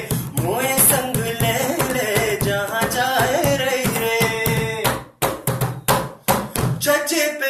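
A man singing a folk-style song while drumming with his hands on a red plastic tub in a tabla-like rhythm. Towards the end the beat breaks into a few separate strikes and then stops, leaving the voice alone.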